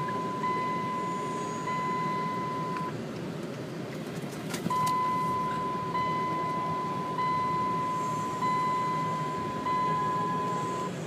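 Car driving, with steady road and engine noise, while a high electronic warning chime rings about once every second and a quarter. The chime pauses for nearly two seconds in the middle, and there is a single sharp click just before it resumes.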